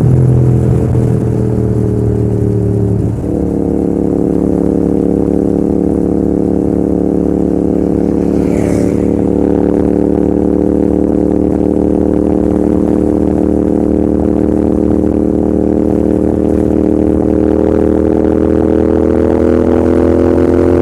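Royal Enfield Continental GT650's parallel-twin engine and exhaust running under way, with a steady note. The pitch sags slightly at first, breaks briefly about three seconds in, then holds and slowly rises near the end.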